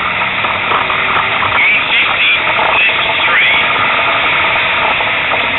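Loud, steady in-car noise of a rally car at speed: engine and road noise filling the cabin, with a voice coming through now and then.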